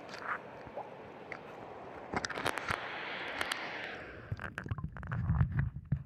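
A phone in a waterproof case being dipped into river water: rushing water noise with handling clicks, then about four seconds in the sound turns muffled into a low rumble with knocks as the microphone goes under.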